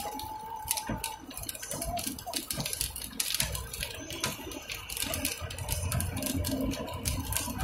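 Low road and engine rumble inside a moving car, with scattered light ticks and a few faint tones in the background.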